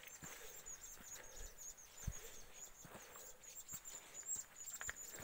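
Faint footsteps in fresh snow at a walking pace, about one a second, with small birds chirping in quick, repeated high notes throughout.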